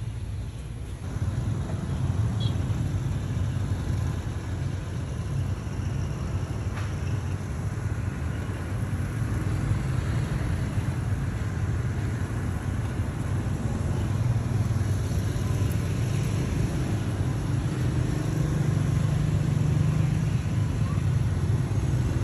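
Steady low rumble of background noise, with a couple of faint clicks early on.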